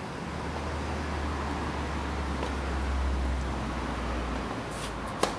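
A steady low rumble, then near the end a single sharp crack of a tennis racket striking the ball on a serve.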